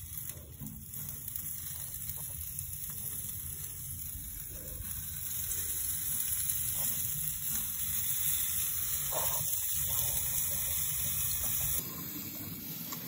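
New York strip steaks sizzling on a charcoal smoker's grill grate: a steady hiss that grows a little louder about halfway through, with a low rumble underneath, cutting off sharply about a second before the end.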